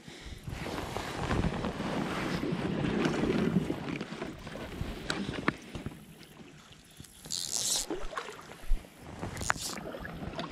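Rustling handling noise and wind on a body-worn camera's microphone as an angler works a fly rod and line. A short hiss comes about seven and a half seconds in, followed by a sharp knock and a few light clicks.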